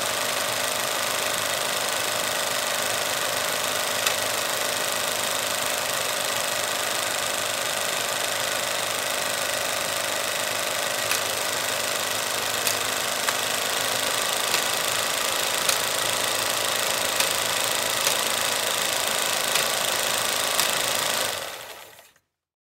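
16 mm film projector running with a reel threaded: a steady mechanical whir with an occasional click. It fades out shortly before the end.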